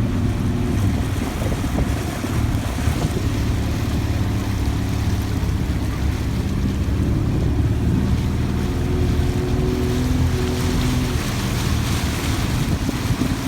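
Motorboat engine running steadily under way, with water rushing past and wind on the microphone.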